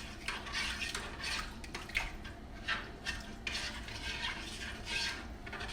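A spoon stirring crab boil sauce in a pot, just thinned with water, with a rhythmic swish and scrape against the pot about once or twice a second.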